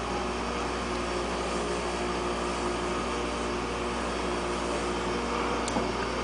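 Steady background hum and hiss of running equipment, even throughout, with a faint click near the end.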